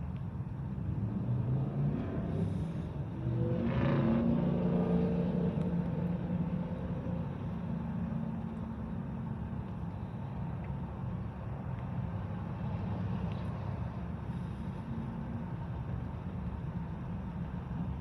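Train rolling past with a steady rumble. A louder swell about two to six seconds in carries a slightly falling engine tone, like a vehicle going by.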